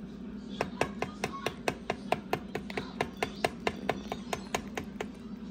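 A utensil beating rhythmically against a mixing bowl, about five quick taps a second, starting about half a second in and stopping near the end: donut dough ingredients being mixed by hand.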